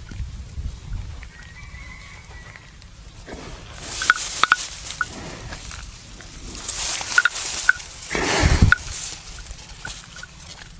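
Buffalo chewing the cud, with bursts of crunching, grinding noise from about three and a half seconds in. The loudest moment is a deep rush of noise about eight seconds in. Short faint chicken clucks are heard now and then.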